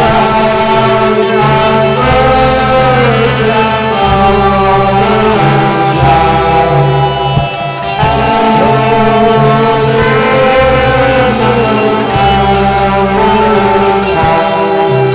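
Music with sustained chords, a steady bass line and a melody line gliding over them.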